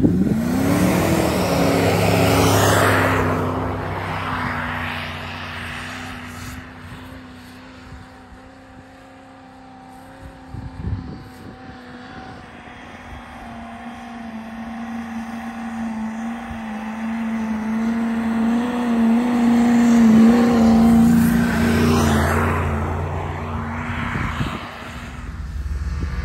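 Off-road SUV engine running hard under load while it ploughs through deep snow. It is loud at the start, fades, then swells to its loudest about twenty seconds in.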